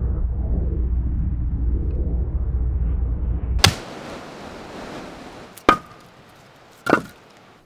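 A low rumbling drone that cuts off with a sharp axe strike into wood, followed by two more axe chops, the second about two seconds after the first and the third about a second later.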